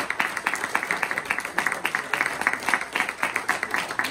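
Audience applauding, with one pair of hands clapping close by: a dense, steady run of sharp claps.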